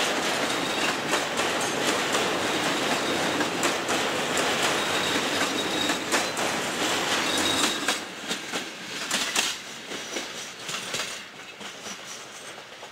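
Passenger coaches rolling past close by over a steel rail bridge: wheels clattering over the rail joints with a faint high wheel squeal. The clatter falls quieter about eight seconds in, leaving sparser clicks.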